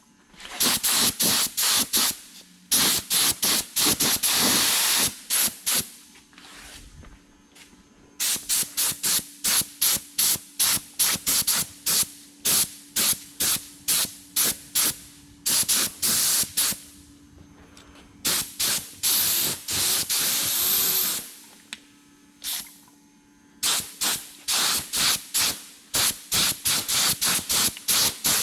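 Cheap pneumatic primer spray gun hissing in short trigger bursts, about two a second, with a few longer unbroken passes, over a faint steady hum.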